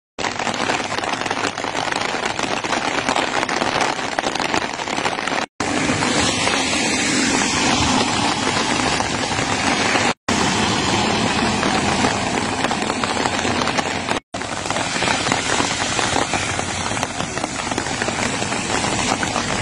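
Heavy rain falling steadily on a wet paved road, an even hiss broken by three short gaps.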